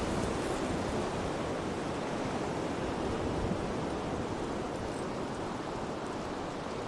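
Small surf waves washing over the sandy beach shallows, a steady hiss of water.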